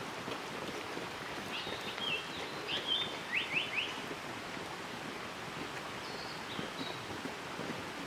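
Japanese paradise flycatcher singing: about two seconds in, a phrase of short whistled notes ending in a quick run of rising 'hoi hoi hoi' whistles, with a couple of higher short notes a few seconds later, over a steady background hiss.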